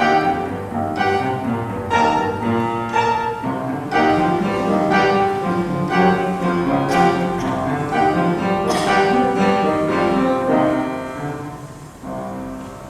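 Piano trio of piano, violin and cello playing classical chamber music. The piano strikes repeated notes and chords under held string lines, and the music grows quieter near the end.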